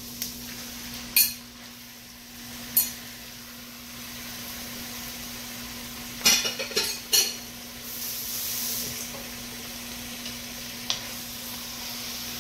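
Sliced chuck steak being scraped off a plate with a fork into a cast-iron Dutch oven of vegetables, the pot sizzling steadily. Sharp clinks of fork and plate against the pot come a few times, several in quick succession a little past the middle, then the meat is stirred in.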